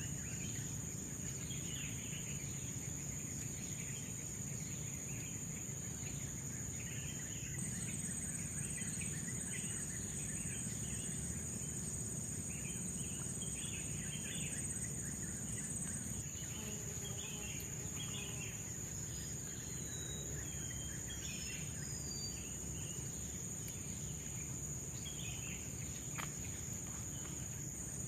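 Tropical forest ambience: a steady high-pitched insect chorus with scattered chirping bird calls, including a few short descending whistles around the middle.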